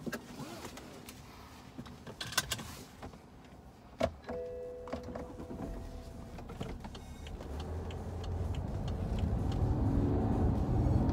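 Inside the cabin of a BMW 530d: a few clicks and handling noises, then a knock about four seconds in, followed straight away by a steady electronic tone lasting about two seconds. From about halfway through, the car's 3-litre straight-six diesel and its tyres set up a low rumble that grows louder as the car pulls away.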